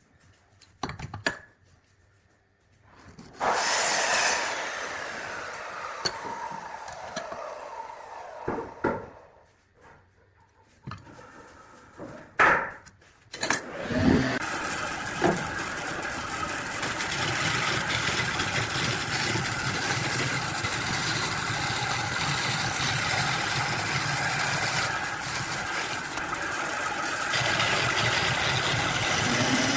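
Knocks and clicks of handling on a wood lathe. A machine starts suddenly about three seconds in and winds down with a falling pitch. About fourteen seconds in a steady machine noise begins and keeps running, typical of the lathe turning.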